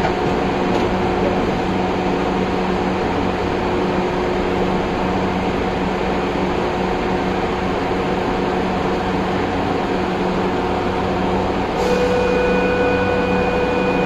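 Steady hum of a standing light rail car's onboard equipment, heard inside the driver's cab. About twelve seconds in, a steady higher tone starts and holds.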